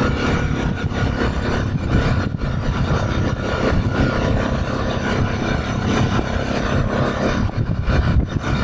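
ATV engine running steadily at cruising speed while riding along a gravel road shoulder. A steady rushing ride noise lies over the engine without a break.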